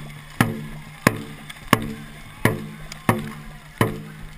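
Dragon boat drum struck at a steady beat, about three hits every two seconds. Each hit is sharp, with a short booming ring, and marks the paddlers' stroke rate.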